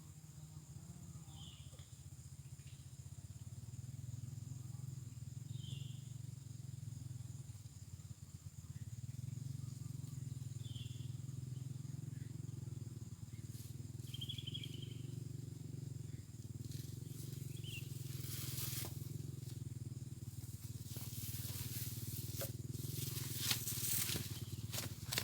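Outdoor ambience: a steady low hum, with a short high chirp every few seconds. Rustling and clicking sounds come in near the end.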